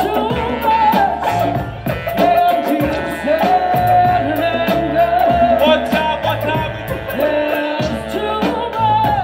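Hip hop groove from a live band between rap verses: drum kit and a stepping bass line under a wavering melodic lead line.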